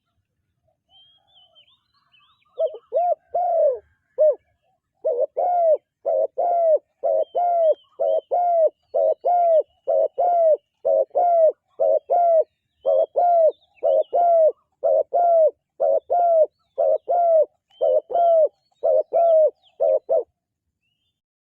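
Spotted dove cooing: a long, unbroken series of low, paired coo notes, about one pair a second, that stops a second or so before the end. Faint high chirps from other birds come in at the start.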